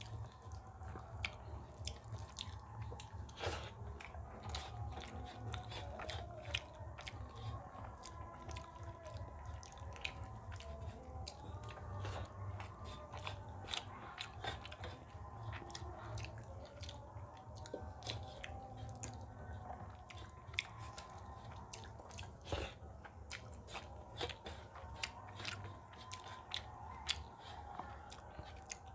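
Close-miked chewing and wet mouth sounds of a person eating rice and spicy potato curry by hand, full of small sharp clicks and smacks, along with fingers mixing rice and curry on a brass plate. A steady low hum runs underneath.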